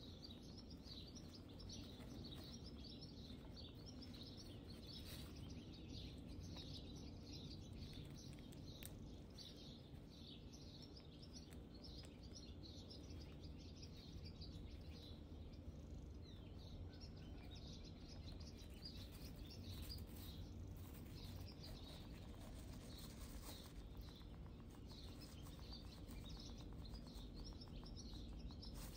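Faint, rapid crackling and nibbling from a hamster gnawing at a cob of dried multicoloured corn and moving about in wood-shaving bedding, over a low steady hum.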